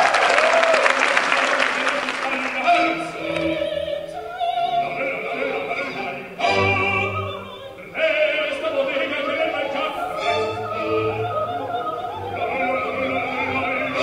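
Operatic male singing voice with a wide vibrato, delivered in phrases with short breaks, the longest just before the middle.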